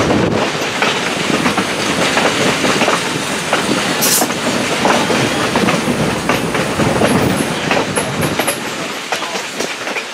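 Passenger railroad coach rolling along, heard from an open side window: a steady rumble of wheels on the rails with irregular clicks and clacks. A brief hiss comes about four seconds in.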